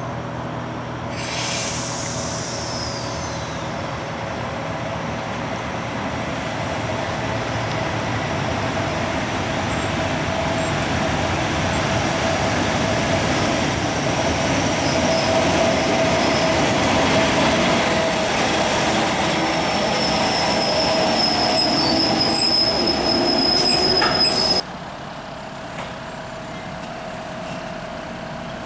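Electric locomotive-hauled passenger train passing through a station: a steady rumble of wheels on rails with high-pitched wheel squeal, and a high falling squeal about a second in. The sound grows louder towards the middle, drops abruptly about 25 seconds in, and then goes on more quietly.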